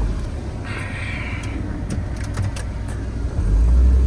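Chevy Tracker's engine running while it pushes snow with a front plow blade. The engine grows louder about three and a half seconds in, and a few light ticks come near the middle.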